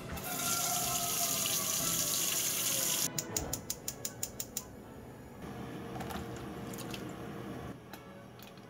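Water running from a tap for about three seconds, then shut off, followed by a quick run of about ten sharp clicks and a quieter steady hiss.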